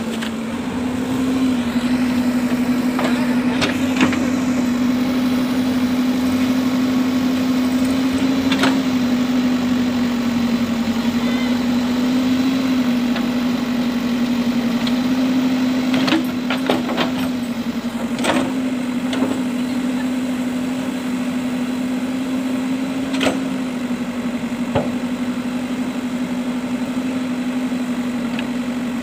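Diesel engine of a JCB 3DX backhoe loader running at steady revs with a constant hum, broken by a few sharp clanks and knocks, several close together about halfway through.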